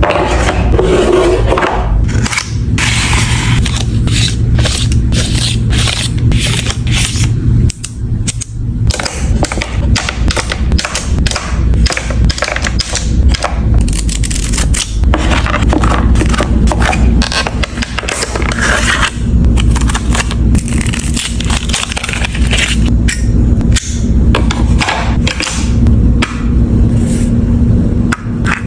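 Close-miked ASMR handling sounds: bamboo organizer bins clacking and sliding into a wooden drawer, then stationery handled over it, with a paper sticky-note pad and a plastic roller stamp. Many sharp clicks, taps and scrapes follow one another closely, without a break.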